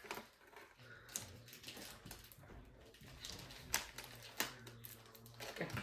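Wrapping paper rustling and being creased in short, scattered bursts as it is folded around the base of a candle jar.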